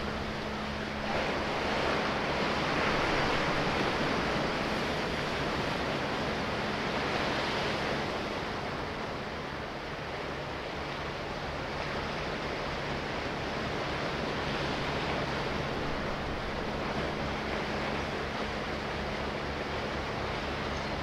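Sea waves washing, swelling to their loudest a few seconds in and then easing to a steady wash, with a steady low hum underneath.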